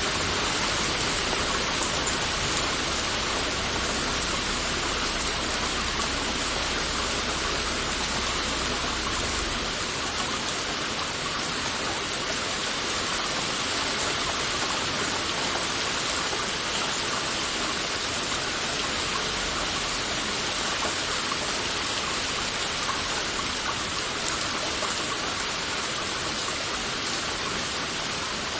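Heavy rain falling steadily, a dense even hiss of many drops. A low rumble underneath stops about a third of the way in.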